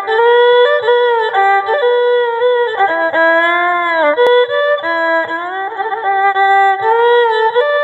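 Instrumental background music: a single melody line of held notes that slide from one pitch to the next.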